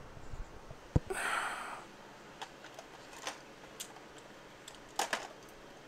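Light clicks and rustling of a multimeter and its test leads being taken out and handled, with a sharp click about a second in followed by a short breath, and a few more small clicks, the loudest near the end.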